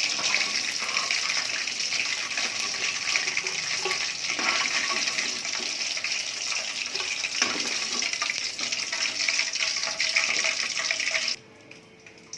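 Chicken 65 pieces deep-frying in hot oil: a steady sizzle that cuts off suddenly about eleven seconds in.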